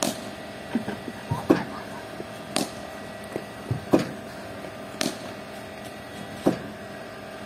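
Cricket bowling machine firing tennis balls and a bat striking them: sharp knocks about every second or so over a steady machine hum.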